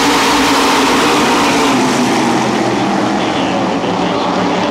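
A full field of SK Modified race cars accelerating together on the start, their small-block V8 engines blending into one loud, steady drone of many overlapping engine notes.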